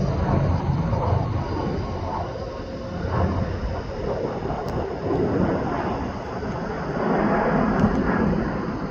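Jet airliner noise: a steady rumble and rush that swells and eases every few seconds.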